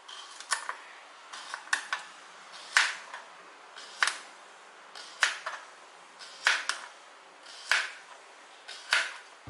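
Kitchen knife slicing an unpeeled cucumber into rounds on a plastic cutting board: a sharp knock of the blade on the board with each slice, about one a second, some coming in quick pairs.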